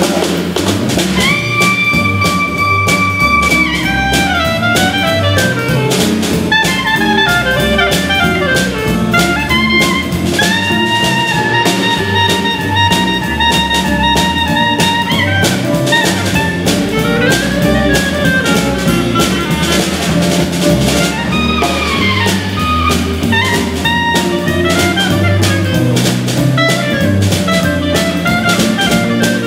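Live jazz band instrumental break: a clarinet plays the lead melody in long held notes and quick runs over electric guitars and a drum kit.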